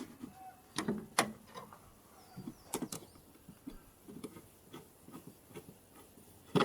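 Scattered light clicks and taps of small metal parts and tools being handled during engine-bay work, with a sharper click right at the end.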